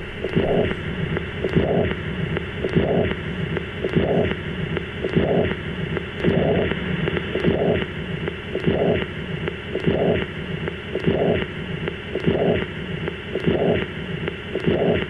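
Stethoscope recording of chest sounds: a regular pulsing sound about once every 1.2 seconds over a steady hiss.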